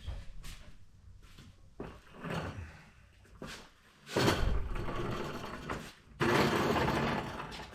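Rustling and scraping handling noises, with two longer stretches of scraping in the second half.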